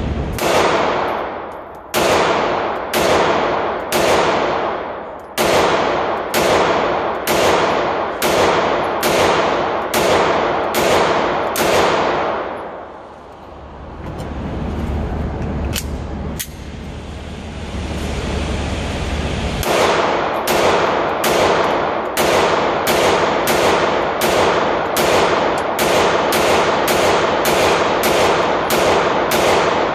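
Sig P365 pistol fired in two long strings of rapid shots, each shot echoing off the concrete-block walls of an indoor range; the second string is faster, about two shots a second. A pause of several seconds in the middle holds a steady low hum and a single click.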